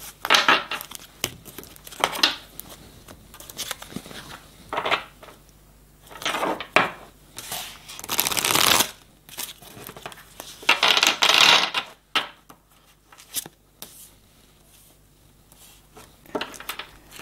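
A deck of divination cards being shuffled by hand in repeated rustling bursts, the longest ones around the middle, with a card laid face down on a wooden table.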